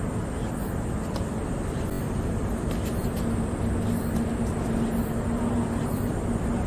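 Tennis rally: rackets hitting the ball several times with short sharp pops, over a steady low rumble of road traffic.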